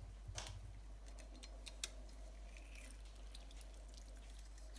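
Faint, scattered clicks and taps of a stainless steel hand-held lime squeezer being loaded with a lime half and worked over a glass bowl, with one sharper click a little under two seconds in.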